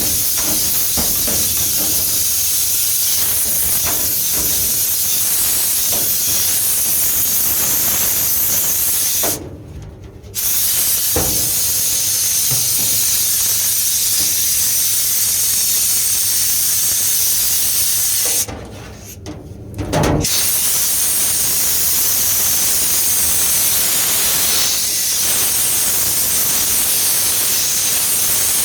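Steady, loud rush of air from dryer-vent cleaning equipment working in the duct. It cuts off twice for a second or two and starts up again.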